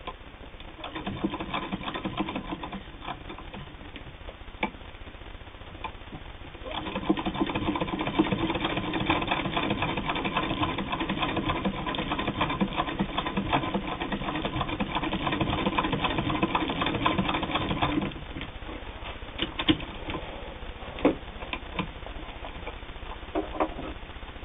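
Hand-cranked Singer 99 sewing machine running, its needle and mechanism making a fast, even chatter. The chatter is moderate at first and grows louder and steadier from about seven seconds in. Near eighteen seconds it drops away to a few separate clicks.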